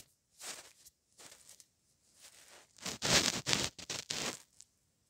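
Irregular bursts of crackling, rustling noise picked up by a car dashcam's microphone while driving, the loudest run about three seconds in, cutting off abruptly about four and a half seconds in.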